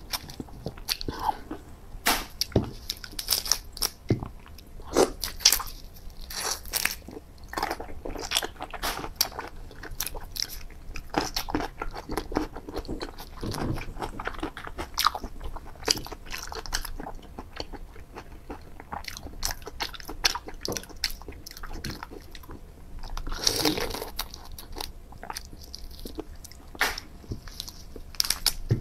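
Close-up eating of raw marinated shrimp: dense, irregular crunching, chewing and wet mouth clicks.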